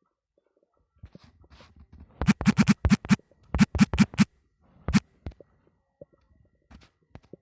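Stomach growling: a quick run of about ten loud, short gurgles between about two and four seconds in, then one more near five seconds, with faint crackling gurgles around them.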